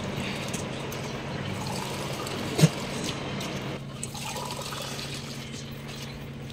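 Water pouring into a cooking pot. There is a sharp clink about two and a half seconds in, and the rush of water thins out about a second later.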